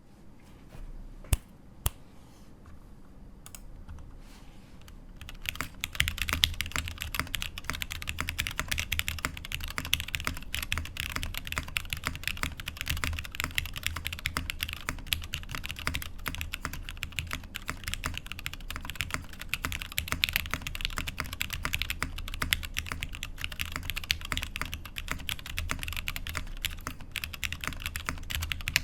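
Mechanical keyboard typing on a CherryB Neo87 with lubed, broken-in Cherry MX Black linear switches on an aluminium plate, no case foam, and XMI keycaps. A few separate keystrokes come first, then fast continuous typing from about five seconds in.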